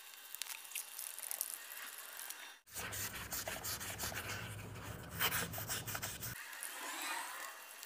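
Hand sanding with an 800-grit foam scuff pad, rubbing in short, uneven scratchy strokes over a car door's painted surface around the door handle recess. This scuffs the clear coat so the new clear coat will adhere. A low steady hum sits underneath through the middle of the stretch.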